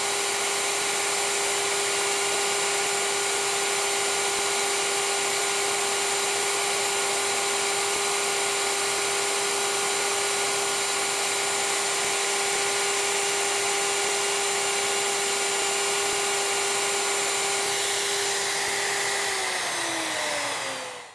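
Plunge router with a dust-extraction hose running at a steady high pitch while routing out a bow-tie inlay recess in wood. Near the end it is switched off and its pitch falls as it winds down to a stop.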